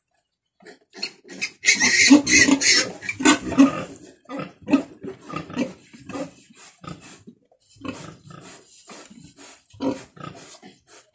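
Newborn piglet squealing: a run of loud, harsh squeals about two seconds in, then shorter, quieter squeals repeating, as it is held for its umbilical cord to be cut.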